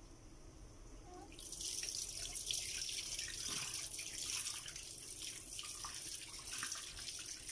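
Water from a kitchen tap starts running about a second and a half in, pouring into a stainless steel sink as a hand rinses under the stream.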